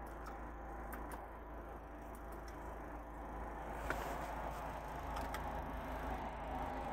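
Car engine idling steadily, heard from inside the cabin of a GM Daewoo Winstorm, with a few sharp clicks of console buttons and switches being pressed, the clearest about four seconds in.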